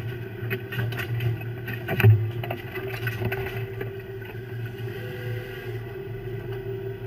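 Fishing boat's engine running with a steady drone, under knocks and clatter of crabs and gear on the deck, with one loud thump about two seconds in; the knocking thins out in the second half.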